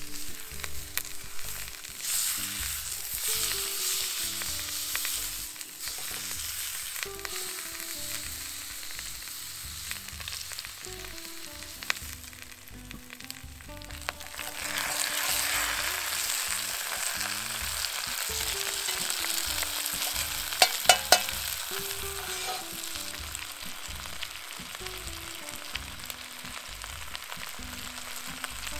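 Food frying and sizzling over an open fire, the hiss swelling twice. Three quick sharp clinks come about three-quarters of the way through.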